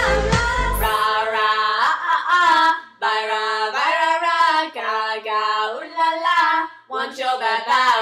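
Teenage girls singing unaccompanied in a few short phrases with brief breaks between them; a pop backing track with a heavy beat cuts out about a second in.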